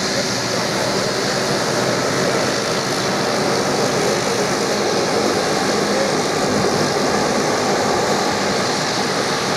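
De Havilland Canada Dash 8 Q300 turboprop taxiing, a steady engine and propeller drone that swells slightly midway. It is taxiing on one engine, with engine one shut down to save fuel.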